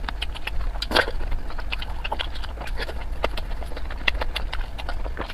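Close-miked eating: a rapid, irregular run of wet chewing clicks and smacks, the loudest about a second in, over a steady low hum.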